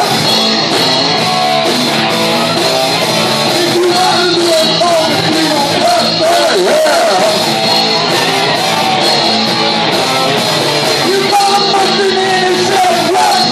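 Live rock band playing loud: a man singing over electric guitar and drums.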